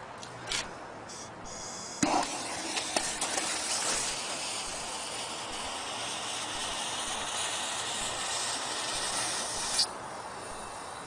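A steady hiss of pressurised gas while a tyre bead is being seated. It starts with a knock about two seconds in and cuts off with a click near the end.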